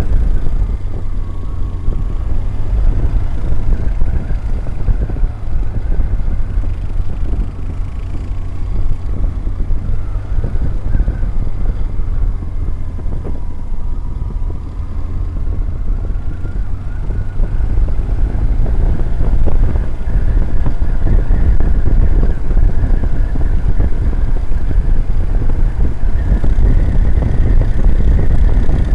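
BMW GS boxer-twin motorcycle engine running at road speed, mixed with wind and road rush, with a faint whine that slides up and down as the bike works through curves. It grows louder over the last ten seconds.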